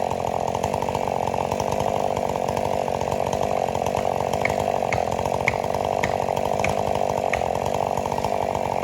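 Chainsaw running steadily, cutting wood. About six faint, high ticks come about half a second apart in the second half.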